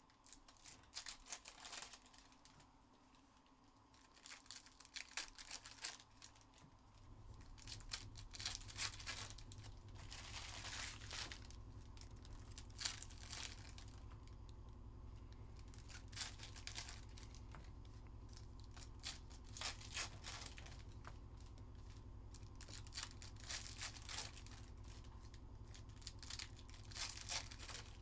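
Trading-card pack wrappers being torn open and crinkled, with cards handled, in short scattered bursts and clicks. A faint low steady hum comes in about seven seconds in.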